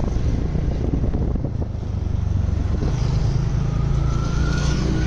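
Engine of a moving road vehicle running steadily with a low drone, with road and wind noise, heard from on board.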